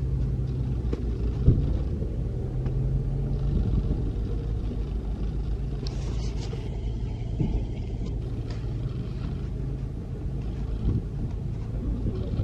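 A van's engine running, a steady low rumble with a low hum, with scattered short knocks and rattles.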